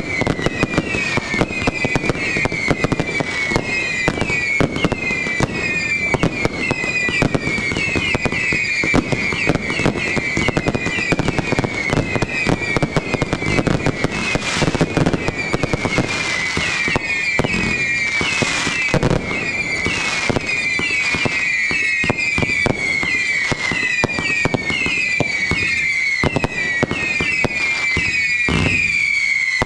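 Fireworks display at close range: a dense run of sharp cracks and bangs from launched comets and bursting shells. Short falling whistles repeat two or three times a second over the bangs.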